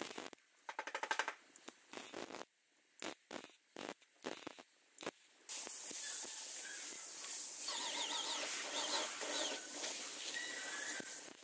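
Car bodywork tools: a series of sharp clicks and knocks with a brief fast rattle about a second in, then a steady hissing scrape from about halfway through.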